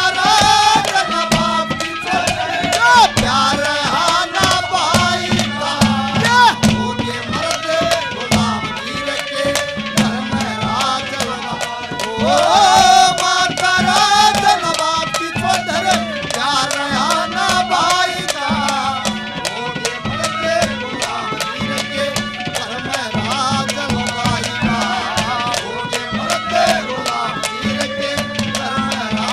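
Haryanvi ragni folk music: hand drums keep a steady beat under a wavering melodic line, an instrumental passage between sung verses.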